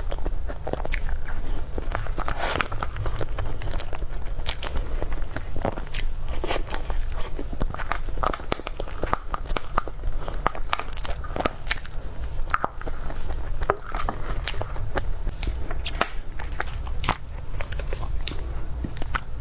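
Close-miked eating: biting and chewing with many irregular crunchy, crackling mouth clicks, over a steady low hum.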